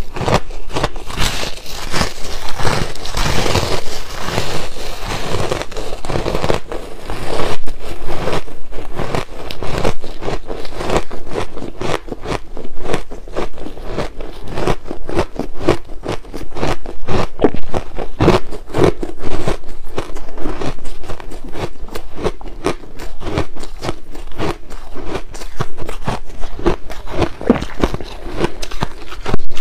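Close-up crunching and crackling of soft, frost-coated ice being bitten and chewed, a dense run of crisp crunches.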